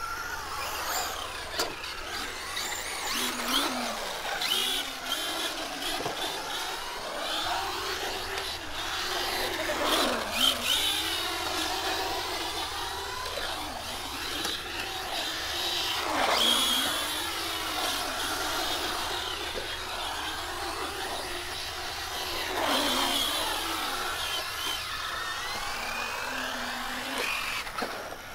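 Electric RC cars racing around a concrete skatepark bowl, their motors whining in pitch sweeps that rise and fall over and over as they speed up, pass and turn.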